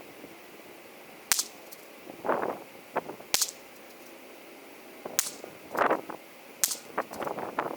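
Four sharp shots from a Bergara BMR-X .22 LR bolt-action rimfire rifle, about one every one and a half to two seconds, with the bolt worked between shots.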